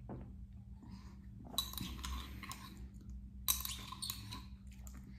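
Light clinks of a small espresso cup being handled on the table: two sharp clinks with a brief ring, about a second and a half in and again about three and a half seconds in, with faint handling noise between.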